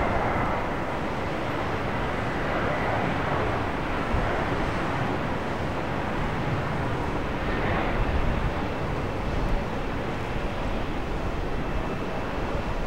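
Jet airliner engines running: a steady, even noise with a faint high whine.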